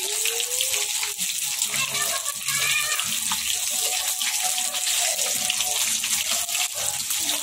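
Chicken drumsticks and thighs deep-frying in hot oil in a wok: a steady, dense sizzle full of fine crackling pops.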